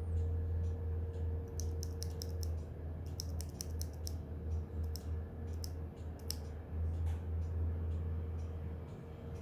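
Typing on a Tofu65 mechanical keyboard with stock Durock Lilac tactile switches (nylon housing, POM stem), a brass plate and GMK keycaps: keystroke clacks in quick irregular runs, over a steady low hum.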